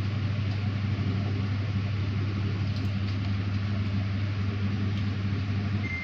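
Samsung top-load washing machine running its power-spin test, with a steady low hum from the drain pump and drum motor. Near the end a short electronic beep sounds as a panel button is pressed, and the hum cuts off.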